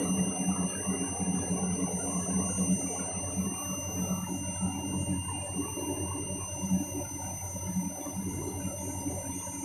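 CRT computer monitor making a steady electronic noise: several high-pitched whining tones over a rough, fluttering buzz. The owner treats it as a fault.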